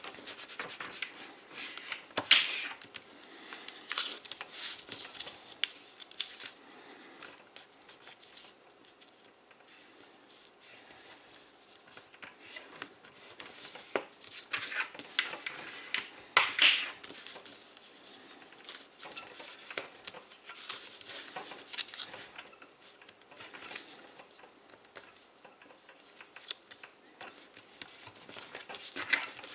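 A sheet of origami paper being folded and creased by hand: crinkling, with fingers rubbing and scraping along the folds. The handling comes in irregular bursts, loudest about two seconds in and again around sixteen seconds.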